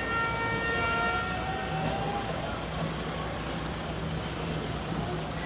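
A held horn note, steady in pitch, sounding at the start and cutting off about a second and a half in, over constant street and crowd noise. A steady low hum, like an engine running, carries on after it.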